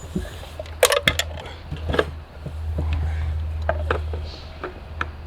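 Scattered clicks and light knocks of a fuel container and the chainsaw's fuel cap being handled while the chainsaw is refuelled, the sharpest cluster about a second in, over a steady low hum.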